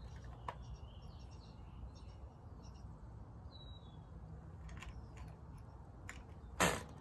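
Cox .049 glow engine being hand-flipped for a start: a few faint clicks as the propeller is flicked, then near the end one short, loud burst as the engine fires for a moment and dies without catching. Birds chirp faintly in the background.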